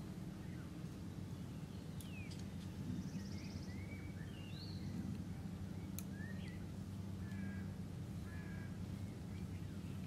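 Birds calling in short chirps and whistles, with a brief rapid trill about three seconds in, over a steady low hum. Two sharp clicks, about two and six seconds in.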